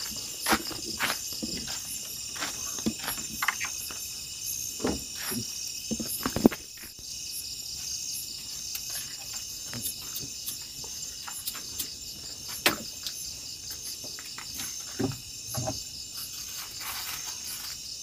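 Steady night chorus of crickets and other insects, with scattered footsteps and sharp knocks and clatter of things being handled, the loudest knocks about six and twelve seconds in.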